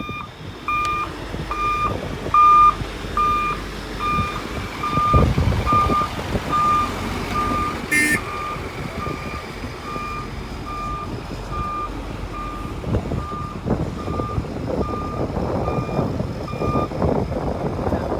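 Reversing alarm of a heavy machine beeping at an even pace, a little under two beeps a second, over engine noise, signalling that the machine is backing up; the beeping stops near the end. A short sharp click sounds about halfway.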